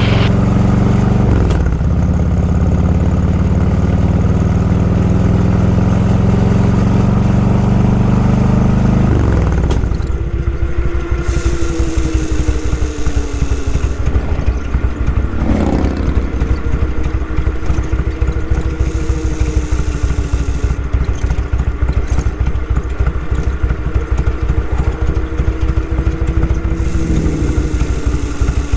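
Motorcycle engine running while riding: a steady note for the first nine seconds or so, then dropping to a lower, pulsing beat, with brief changes in pitch about halfway through and near the end.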